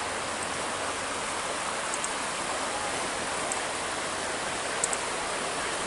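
Flowing river water rushing steadily, an even unbroken rush, with a few faint ticks on top.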